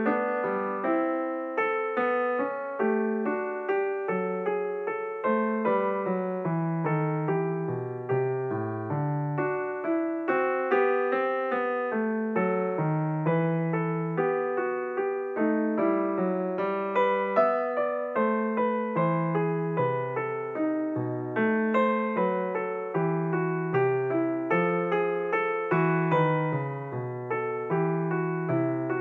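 Solo piano music: a gentle melody of single struck notes played one after another, each ringing and fading.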